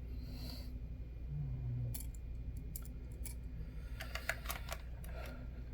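Scattered light clicks and small rattles from handling small hard parts, bunched together about four seconds in, over a faint steady low hum.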